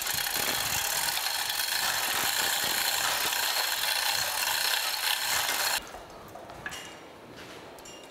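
Electric chain hoist on a gantry crane running steadily as it lifts the heavy cast-iron planer cross head, cutting off suddenly about six seconds in; a few light clinks of chain and rigging follow.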